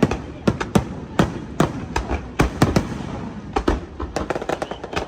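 Aerial fireworks shells bursting in a rapid, uneven string of sharp bangs, about three a second, over a continuous rumble.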